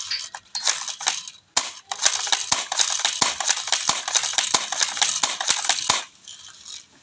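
Rapid, irregular clicking and clattering of a D-Cobra M416 airsoft rifle being handled: a short burst near the start, then a dense run of clicks lasting about four seconds that stops suddenly.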